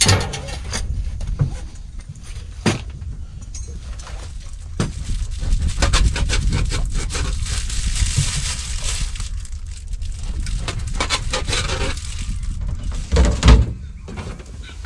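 Irregular clicks and knocks over a low, steady rumble, with a stretch of hiss about midway through.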